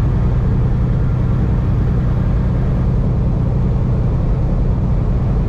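Steady low rumble of a semi truck's diesel engine and tyre noise, heard inside the cab while cruising at highway speed.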